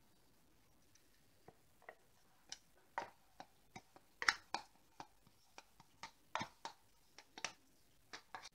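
Faint, irregular light clicks and taps, about twenty of them: a spoon scraping Schmand (sour cream) out of a plastic tub and knocking against the tub and the stainless steel saucepan.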